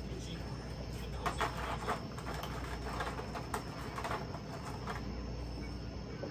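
Light, scattered plastic clicks and rustles as an action figure and its parts are handled, over a steady low hum and a faint high-pitched tone.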